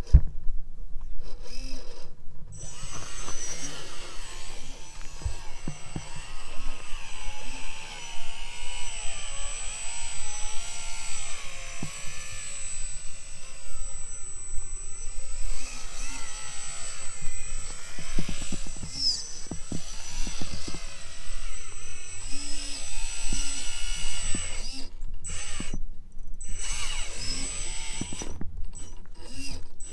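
Electric drive motor and gearbox of an RC Unimog scale trial truck, whining and rising and falling in pitch with the throttle as it crawls over rocks and up a dirt slope, with a few light knocks of the chassis and tyres on stone.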